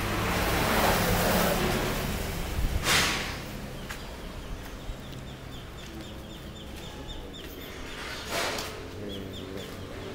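Outdoor ambience: wind rushing on the microphone, with two short gusts, and a small bird chirping over and over, about three chirps a second, in the second half.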